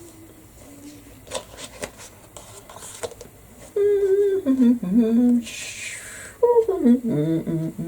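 A person's voice humming two short sing-song phrases, the pitch sliding down within each, with a brief hiss between them.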